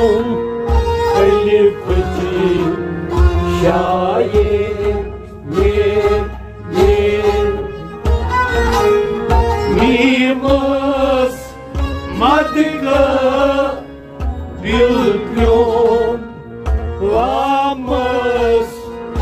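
Men singing a Kashmiri Sufi song to harmonium accompaniment. The harmonium holds a steady drone under the gliding sung phrases, over a low, regular beat.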